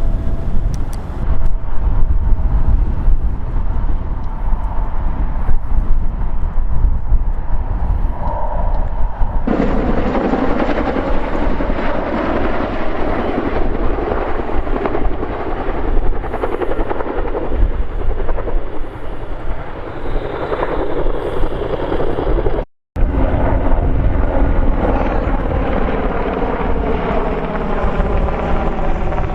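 Aircraft flying over with a heavy low rumble, across several edited clips. In the last clip its pitch slides steadily down as it passes.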